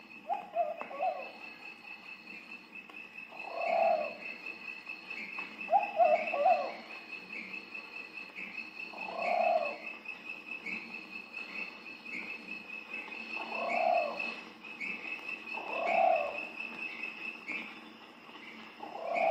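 Wild pombas-trocazes (pigeons) cooing: a low coo phrase repeated about every two to four seconds, seven times, with a steady high pulsing trill running underneath.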